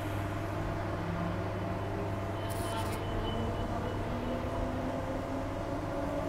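Walkers Limited A-series electric multiple unit running, heard from inside the carriage: a steady low hum with a motor whine that slowly rises in pitch. A brief hiss about two and a half seconds in.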